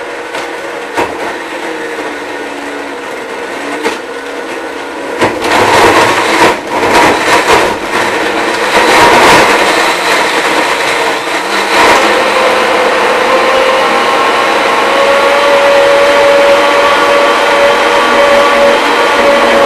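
Countertop blender running through its automatic smoothie cycle on a protein shake. It runs moderately at first, grows louder and uneven from about five seconds in as it churns the mix, then settles into a steady, louder whir with a constant tone for the last several seconds.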